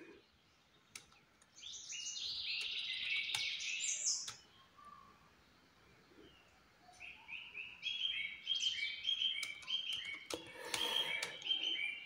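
A songbird singing: two runs of short, quickly repeated high chirping notes, one about two seconds in and a longer one in the second half. A few faint clicks come in between.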